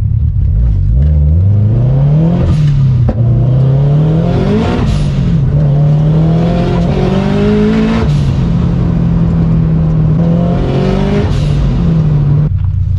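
Turbocharged Scion FR-S flat-four engine accelerating hard, heard from inside the cabin. Its pitch climbs and drops sharply at upshifts about 2.5, 5 and 8 seconds in, then holds roughly steady.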